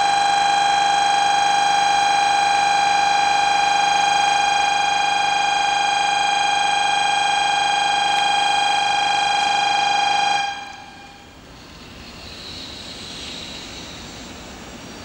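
Shinkansen platform warning buzzer sounding one steady electronic tone, the alert for an approaching train, cutting off suddenly about ten seconds in. After it, a much fainter rushing noise of the approaching bullet train rises a little.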